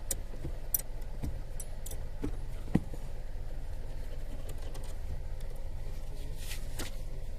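Honda Life JB1 kei car's engine idling steadily, with a few light clicks and knocks in the first three seconds, the sharpest just under three seconds in.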